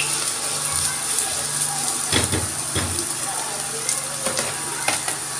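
Diced onions sizzling in hot oil in a frying pan, with a few knocks of a spatula against the pan while they are stirred.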